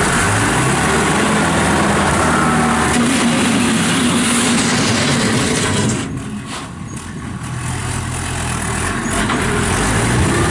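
Kubota M5400 tractor's diesel engine running steadily; about six seconds in the sound drops and thins for a couple of seconds, then builds back up.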